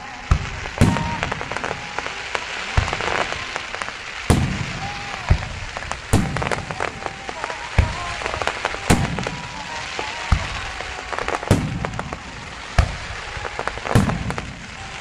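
Star mine fireworks finale: about a dozen loud aerial shell bursts, roughly one every second, each booming with a rumbling tail, over continuous crackling from the falling stars.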